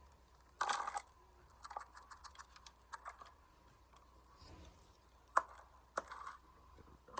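Scratching and sharp clicks in short, irregular bursts with pauses, as the stuck contents of an opened aerial firework shell are worked loose by hand.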